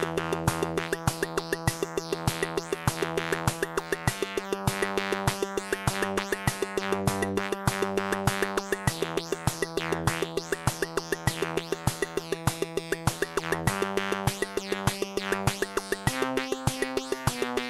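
Arturia MicroFreak synthesizer playing held chords that change every few seconds, over a steady, fast percussion pattern from a Korg volca drum machine.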